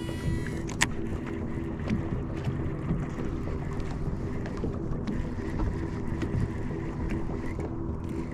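Boat motor running with a steady low hum, and a sharp click just under a second in.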